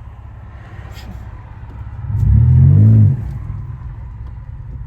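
Catless Pontiac Grand Prix GT's 3.8-litre V6 exhaust droning low inside the car, with a loud burst of acceleration about two seconds in that rises in pitch and cuts off after about a second.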